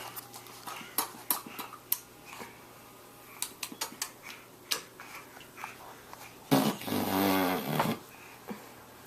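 Tongue clicks made with the mouth, a string of short sharp single clicks at an uneven pace. About six and a half seconds in, a loud drawn-out growly vocal sound lasts about a second and a half, then the clicks resume.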